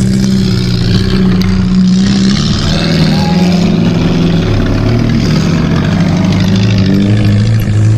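Off-road vehicle engine running loudly under load, its pitch rising and falling as it changes speed.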